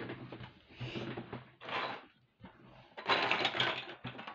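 A small clear plastic bag of metal jump rings being handled and set down, the plastic crinkling in a few short bursts.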